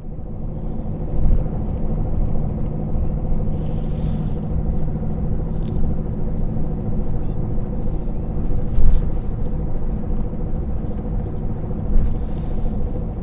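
A car driving, with a steady engine hum over road rumble and a louder thump about two-thirds of the way through.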